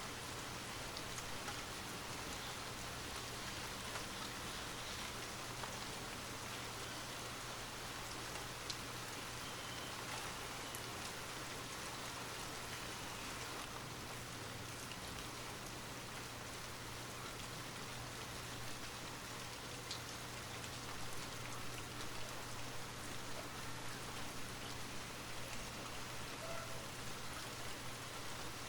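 Steady light rain falling, a soft even hiss with scattered individual drops ticking.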